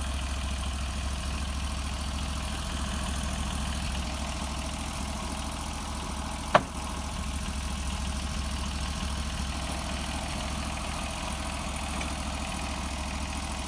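Portable bandsaw mill's engine running steadily, with a single sharp knock about six and a half seconds in.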